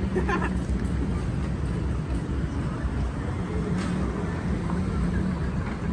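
Outdoor street ambience: a steady low rumble with a faint hum, and a brief snatch of a passer-by's voice just after the start.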